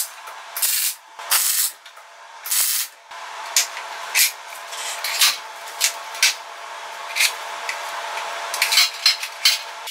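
Wire-feed (MIG) welder tack-welding a steel angle-iron frame: four short bursts of crackling arc hiss in the first three seconds, then shorter, sparser crackles over a steady background hum.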